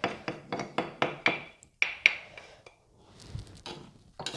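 A spoon knocking and scraping against the inside of a mortar in quick, ringing strokes, about four a second, as the papaya salad is scooped out onto a plate. The strokes stop about two seconds in, and a few softer clatters follow.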